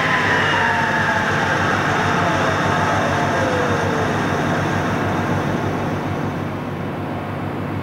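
Table saw blade coasting down after the power is switched off: its whine glides steadily lower in pitch while the overall sound slowly fades as the blade winds down.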